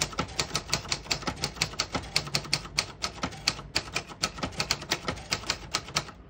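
1967 Royal Lark manual portable typewriter being typed on: a quick, uneven run of keystrokes, several a second, each typebar snapping against the platen.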